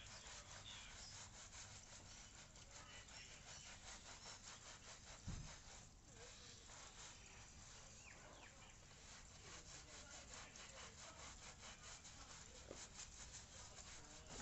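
Stiff brush scrubbing a car floor mat in quick, even back-and-forth strokes, about four or five a second, faint throughout, with one short low thump about five seconds in.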